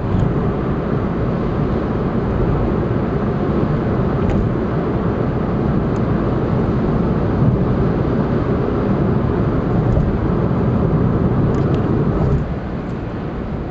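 Steady road and tyre noise with engine hum from a car cruising on an expressway, heard from inside the cabin. The noise drops a little about twelve seconds in.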